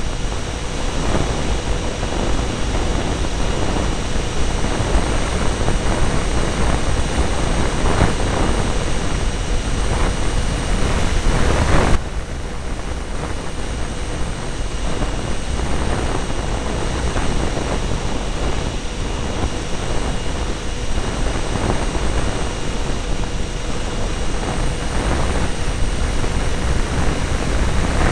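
Twin 70 mm electric ducted fans of an RC F-22 model jet in flight, mixed with air rushing past the onboard microphone. The noise is a steady hiss with faint whine tones, and about twelve seconds in it drops abruptly and stays a little quieter.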